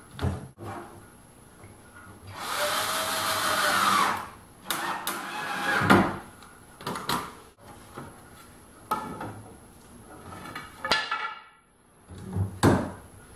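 Cordless drill-driver runs once for about a second and a half, its pitch rising and then falling, driving screws to fasten a wooden pillow block. Scattered knocks and clatter of wood and tools follow.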